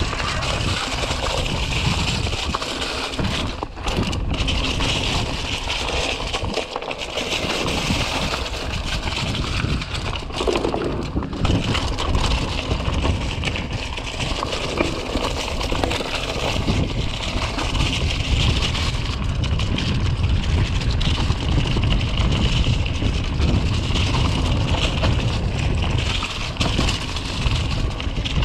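2018 Giant Stance 2 mountain bike being ridden over a dirt trail: steady tyre crunch and rattle, with wind rumbling on the microphone.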